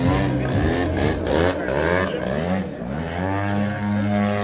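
Radio-controlled model aerobatic plane's engine and propeller, the pitch rising and falling with the throttle for about three seconds, then holding a steady drone.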